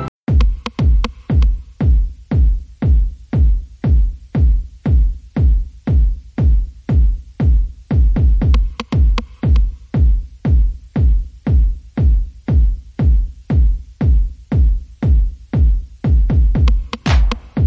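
Electronic dance music with a heavy kick drum on every beat, about two beats a second, starting abruptly at the top.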